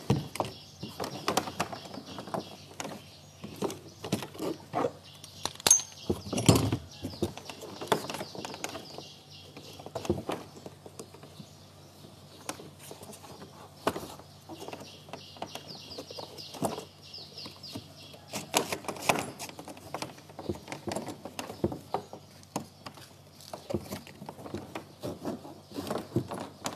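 Irregular clicks, knocks and rustles of a padded kayak seat's straps and clips being handled and fastened onto a plastic sit-on-top kayak, with faint bird chirping in the background.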